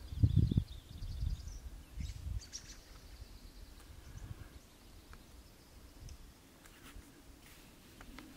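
Wind buffeting the microphone in low rumbling gusts, strongest in the first two seconds and then easing off, while a songbird sings high trills of quick repeated notes in the background.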